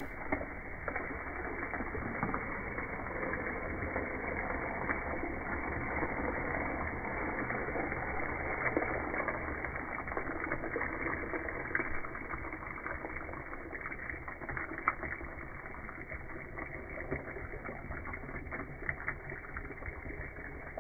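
Hot water, just coming to the boil, poured steadily from a steel pan into a pressure cooker of browned oxtail, splashing onto the meat and seasonings.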